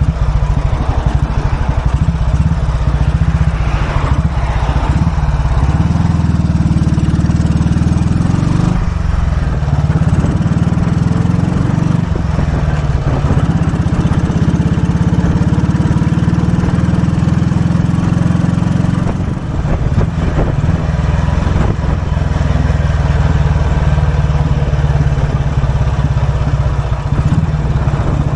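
1943 Royal Enfield WD/CO's 350cc overhead-valve single-cylinder engine running under way, heard from the saddle. It rises in pitch as it pulls and dips briefly three times.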